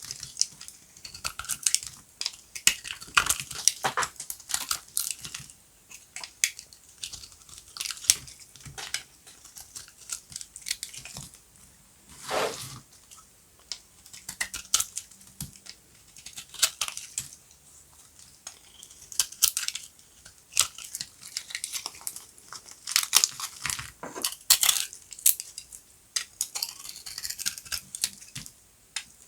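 Dry soap being cut with a knife, crunching and cracking as it breaks into pieces: a steady run of irregular sharp crackles and clicks, with one longer scraping cut about twelve seconds in.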